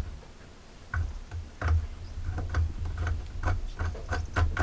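Irregular light metallic clicks and knocks from a chainsaw's drive sprocket being turned and handled by hand with the chain off. The sprocket is bent and does not run freely.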